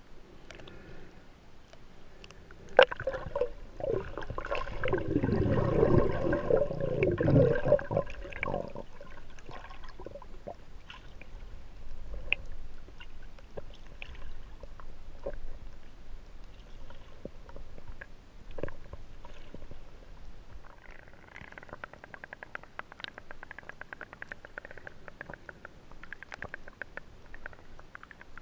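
Underwater sound picked up by a submerged action camera. A few seconds in, water gurgles and bubbles loudly for about five seconds, after a sharp click. After that come quieter water noise and scattered clicks and crackles, denser near the end.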